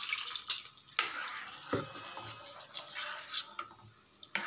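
Water poured from a steel mixer jar into tomato gravy in a kadai, then a metal ladle stirring it, with a few sharp clinks of metal on metal.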